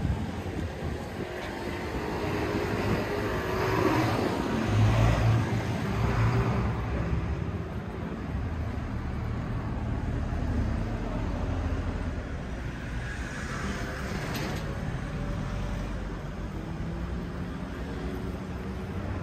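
Street traffic ambience: a car drives past, swelling up and dying away, loudest about five seconds in, and a quieter vehicle passes later.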